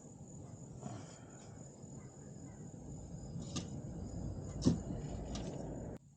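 Low rustling handling noise with a few sharp clicks, the loudest about three-quarters of the way through; it cuts off abruptly near the end.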